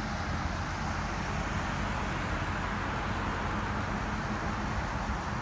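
An engine idling steadily: an even low rumble with a steady hiss over it.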